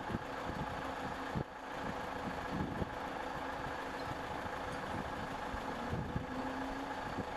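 An engine running steadily at idle, with a brief drop in level about a second and a half in.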